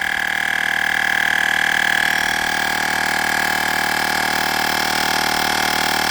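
Olgeo M7 portable air compressor running steadily with a constant high-pitched buzzing drone, pumping a car tire just past 35 psi on its way to 40.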